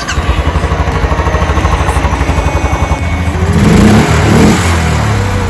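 Royal Enfield motorcycle engine running with a steady, even thump, given a short blip of the throttle about three and a half seconds in before settling back.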